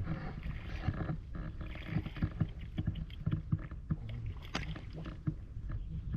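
Water splashing and sloshing in shallow water, a quick irregular run of small splashes and knocks over a low rumble.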